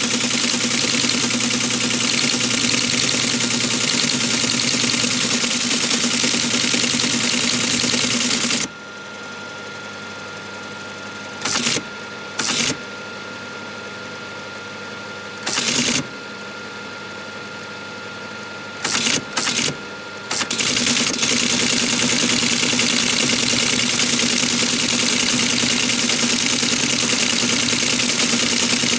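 Teletype Model 33 KSR teleprinter printing at 110 baud, about ten characters a second, for the first nine seconds or so. It then falls to a quieter steady motor hum, broken by a few short bursts as single characters are typed and printed, and full printing starts again about twenty seconds in.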